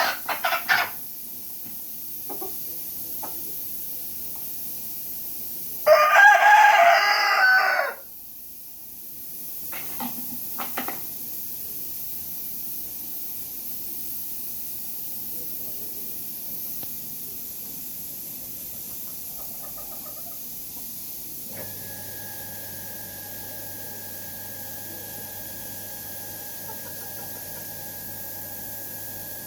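Rooster crowing once, a loud call of about two seconds roughly six seconds in, with a few short clucks just before and a few seconds after it. Later a faint steady hum with a thin high tone sets in.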